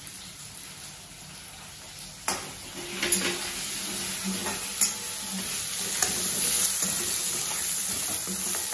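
Cubed taro root sizzling in oil in a metal kadai, coated with chilli powder and salt. From about two seconds in, a metal slotted ladle stirs it, scraping the pan and knocking against it a few times over the steady sizzle.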